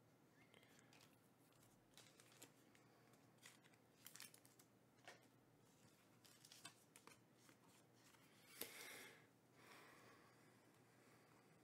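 Faint rustles and light clicks of trading cards being handled and laid on a stack, with a louder swish about nine seconds in.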